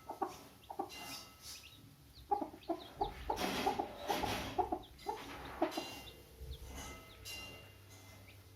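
Hen clucking in short, repeated calls, busiest from about two to six seconds in, with a few faint, high chick peeps among them.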